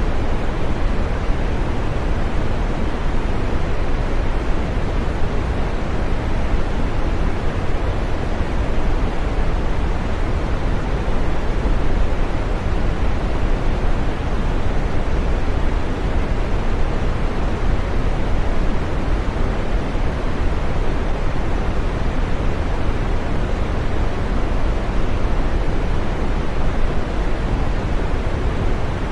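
Steady green noise, a synthetic rushing hiss played as a sleep and relaxation sound. It is a deep, even rush with little sharp hiss up top, and it never changes.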